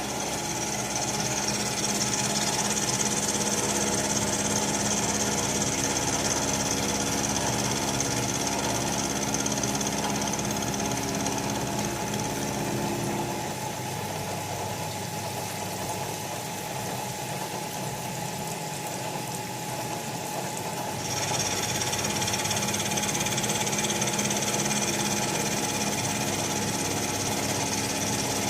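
Bridgeport Series 2 Interact 4 CNC milling machine running while milling a port into a cast master cylinder body: a steady mechanical hum with a high hiss. The sound thins out about halfway through and picks up again about three quarters of the way in.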